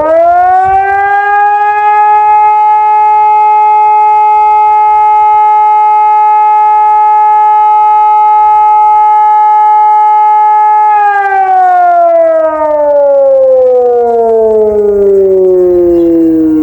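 ECI 600 civil defence siren sounding a single tone without the double tone: the pitch rises sharply at the start, holds steady for about eleven seconds, then slides slowly down near the end.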